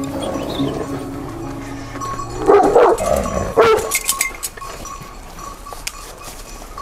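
Large Anatolian shepherd dogs barking, a few short barks between about two and a half and four seconds in.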